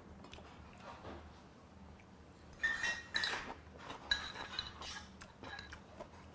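Metal spoon and chopsticks clinking against dishes and a stone pot of soup while eating. The loudest is a cluster of sharp ringing clinks about two and a half to three and a half seconds in, followed by lighter taps.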